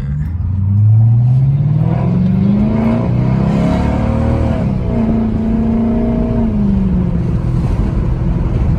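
Straight-piped 5.7 HEMI V8, with mufflers and resonators removed, accelerating under load. The exhaust note rises steeply in pitch over the first couple of seconds, holds, then settles and falls away near the end.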